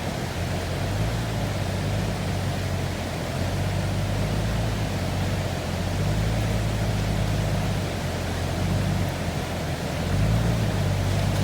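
Toyota Land Cruiser 80 series engine running at steady low revs, pulling under load up a steep off-road climb. It gets a little louder about ten seconds in.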